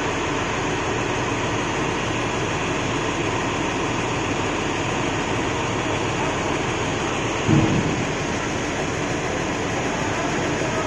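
An 80-ton SANY truck crane's diesel engine running steadily under hydraulic working, a dense even rumble, with a single louder knock about seven and a half seconds in.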